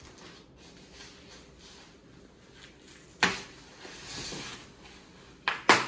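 Knocks and rustling from roof-rack parts being handled: one sharp knock about three seconds in, a softer rustle after it, and two louder knocks in quick succession near the end.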